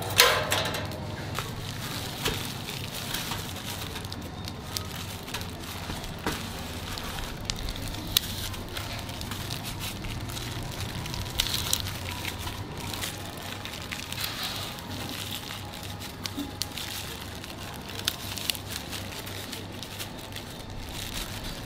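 Coarse salt being squeezed out of plastic bags and crumbled onto a stainless steel tray: a run of small irregular crackles and crunches. A sharp metallic clank of steel tongs on the tray comes just at the start and is the loudest sound.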